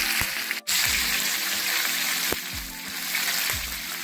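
Chicken thighs sizzling in hot oil in a frying pan, a steady hiss that cuts out for an instant about half a second in.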